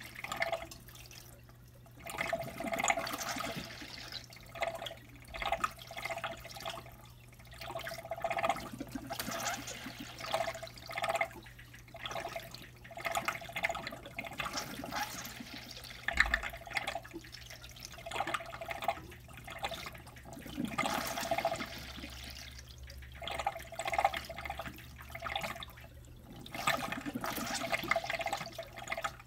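Water running and trickling out of the feed pipe into a DIY hydroponic tank, rising and falling unevenly every second or two, over a steady low hum.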